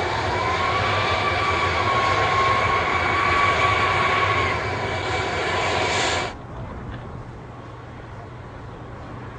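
Antonov An-124's Progress D-18T turbofan engines running on the ground: a loud steady jet noise with a high whine. About six seconds in it cuts off abruptly to a much quieter low hum.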